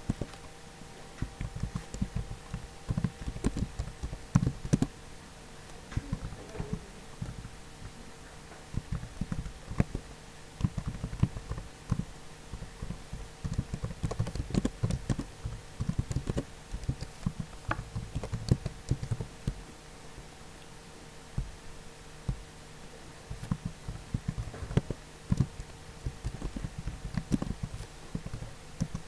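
Typing on a computer keyboard: bursts of key clicks with pauses of a few seconds between them, over a faint steady hum.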